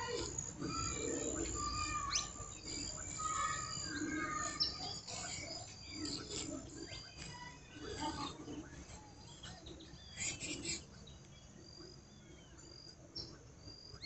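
A chorus of many birds chirping and calling from a roost tree, dense and overlapping through the first part, with a burst of louder calls about ten seconds in, then thinning out toward the end.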